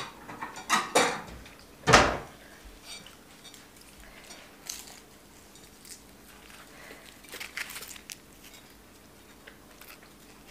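Crunching bites into crispy pan-fried stuffed flatbread, with a sharp knock about two seconds in, then only faint small clicks and rustles.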